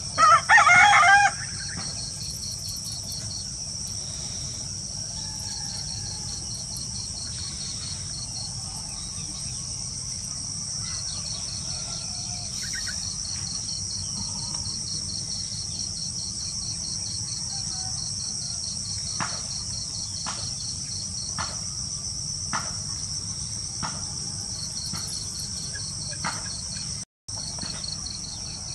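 Steady high-pitched trilling of a cricket chorus, with a faster pulsed chirping running under it. Right at the start a brief, loud animal call lasts about a second, and several faint clicks come near the end.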